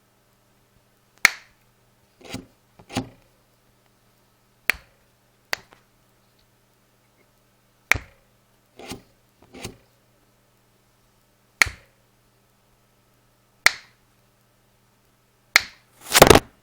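Zippo lighter being worked by hand: its lid clicking open and snapping shut and the flint wheel being struck, a string of separate sharp clicks and a few scratchier strikes a second or two apart. A louder, longer noise comes just before the end.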